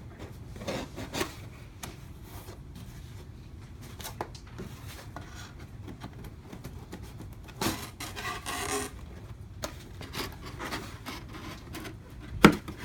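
Corrugated bin panels and lock tabs being handled and folded: scattered rubbing and scraping, with a few louder rustles and one sharp snap near the end, the loudest sound.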